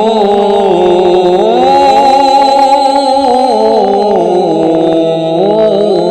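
A male Quran reciter in the melodic mujawwad style, holding one long ornamented vowel whose pitch curves up and down in melismatic turns without a break.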